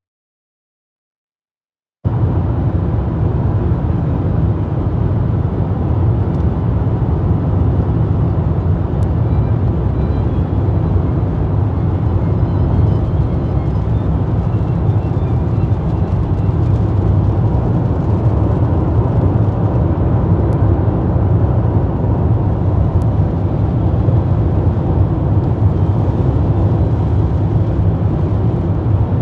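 Steady low rumble of a car driving at motorway speed, engine and tyre noise on a rain-wet road. It starts abruptly about two seconds in, after silence.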